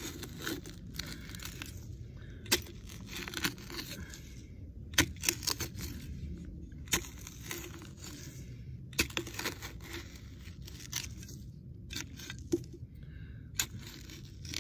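Small high-carbon-steel survival shovel (4Patriots Ready Shovel) dug by hand into dry forest soil: a sharp strike of the blade into the ground every second or two, each followed by a scrape and crunch of loosened dirt, over a steady low rumble.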